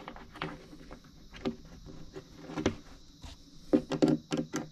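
Irregular sharp clicks and knocks of metal bed-frame hardware being done up by hand, a bolt and its fitting tapping against the base panel, with a quick cluster of knocks near the end.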